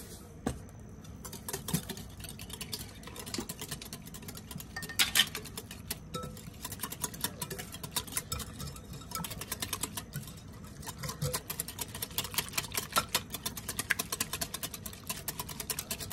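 Wire balloon whisk beating a thin wet batter in a glass mixing bowl, the wires clicking and tapping rapidly against the glass; the strokes come faster and closer together in the second half.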